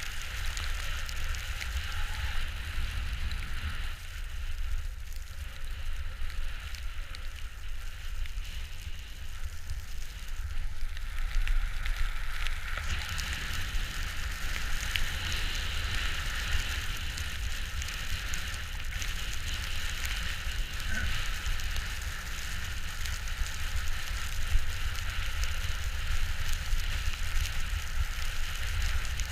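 A rider's edges sliding and carving over snow on a ski slope, a steady crackling hiss that grows louder about halfway through, with wind rumbling on the microphone.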